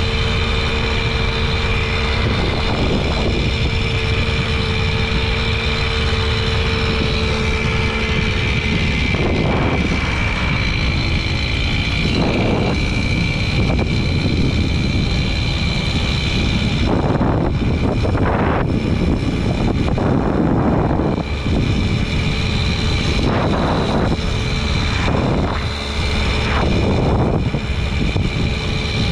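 Jawa Babetta 210 moped's small two-stroke single-cylinder engine running at cruising speed with a steady, high engine note, heard under heavy wind noise on the microphone.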